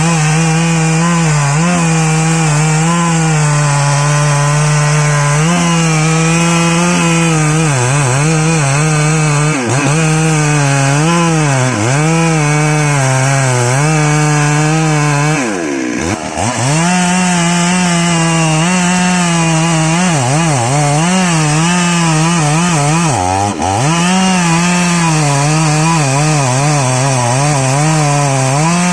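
Stihl MS 382 two-stroke chainsaw running at high revs while cutting teak wood, its engine pitch dipping again and again as the chain bogs under load. About halfway through, the revs sink deeply for a moment and then climb back.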